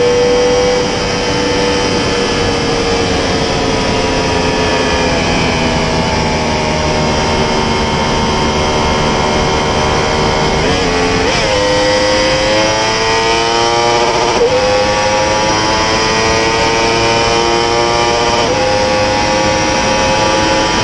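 Yamaha R1's crossplane inline-four running in fifth gear at high speed. Its note falls for about ten seconds as the bike slows off the throttle, then rises steadily as it accelerates hard again, with heavy wind rush over the rider.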